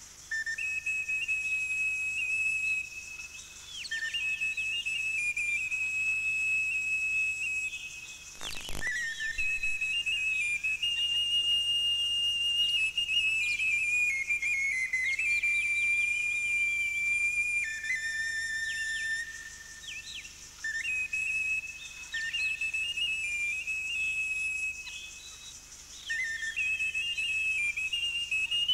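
A high, whistle-like melody of long held notes stepping from pitch to pitch, with short chirp-like glides above it. A single sharp click about nine seconds in.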